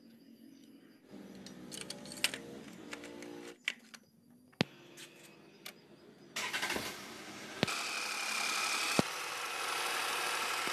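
Renault Kwid's three-cylinder petrol engine starting about six seconds in and then running steadily. This is the first start after the oil sump was replaced and the engine refilled with oil, run to check for oil leaks. Before that there are quieter sounds with a few sharp clicks.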